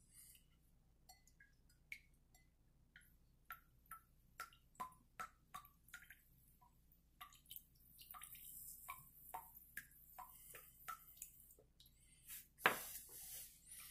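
Water dripping through a 10-micron filter disc from an inverted jar into a glass of water below: small, quiet plinking drops at irregular intervals, about one or two a second. A faint hiss about eight seconds in comes from air being pushed into the jar with a syringe to force the water through faster, and there is a louder knock near the end.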